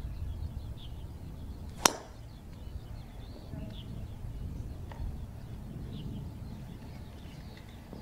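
Golf driver striking a ball off the tee: a single sharp crack about two seconds in, over steady low outdoor background noise.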